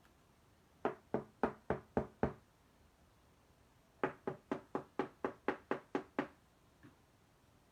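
Two runs of quick knocks: about six at roughly four a second, a pause of nearly two seconds, then about nine more at the same pace.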